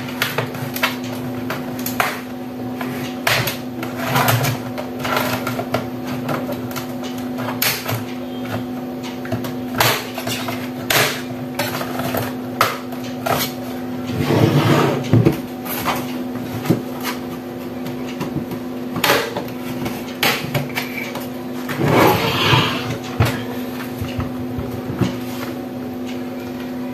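Plastic laptop case being pried open with a thin tool: irregular clicks and snaps of the clips letting go, with two longer scraping rustles about halfway through and near the end, over a steady low hum.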